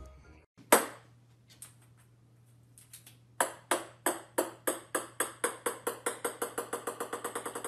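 A single sharp tap, then a run of sharp taps that come steadily faster and a little quieter, from about three a second to about seven a second.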